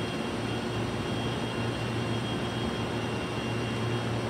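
Steady low mechanical hum with a thin high-pitched whine over it, the constant background drone of a railway station platform.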